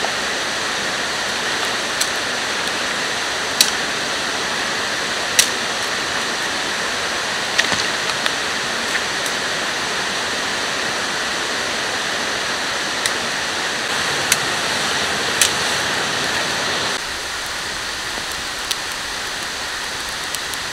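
Wood campfire burning: sharp crackles and pops every second or so over a steady rushing hiss.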